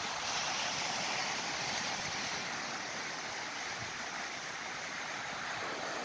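Sea surf washing onto a rocky shore: a steady hiss that softens a little midway.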